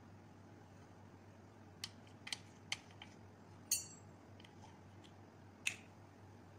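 A plastic flower-shaped gelatin cutter and fingers clicking and tapping on a glass baking dish of set gelatin: about six short, light clicks, the loudest one ringing briefly, over a faint steady hum.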